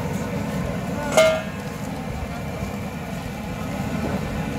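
Steady low hum of street traffic and crowd. About a second in, one sharp metallic clang rings briefly: a steel bowl knocking against a steel serving tray.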